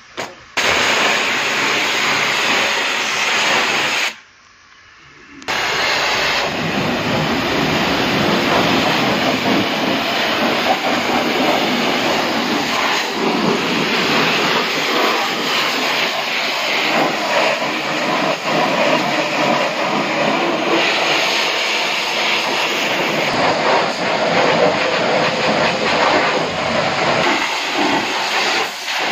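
High-pressure washer jet spraying against a car's underbody and wheel: a loud, steady hiss. It breaks off for about a second about four seconds in, then starts again.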